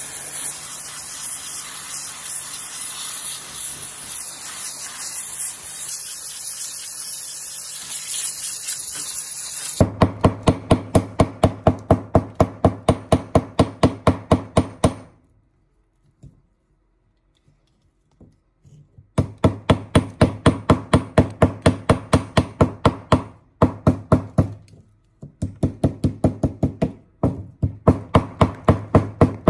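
A steady hiss like spraying for about ten seconds, which cuts off suddenly. Then come rapid, evenly spaced knocks, about four a second, in runs broken by a pause of a few seconds.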